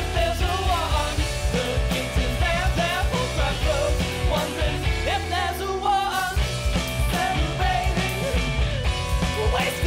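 A rock band playing, with electric guitar, bass and drum kit under a male lead singer.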